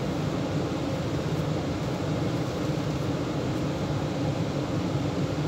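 Steady in-cabin noise of a Chevrolet Tahoe rolling slowly with its engine running: an even low rumble with no distinct knocks or changes.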